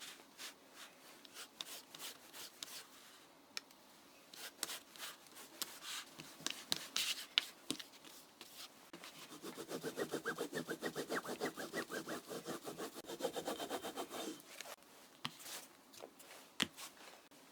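Hands working leather: scattered light clicks and handling noises, then about five seconds of fast, even rubbing strokes, roughly eight a second, before a few more clicks.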